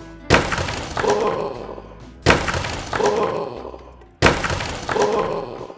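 Two plastic building-brick toy trucks dropped onto a table, landing with a sharp crash and a clatter of loose small bricks coming off. The same crash is heard three times, about two seconds apart, as a repeated replay.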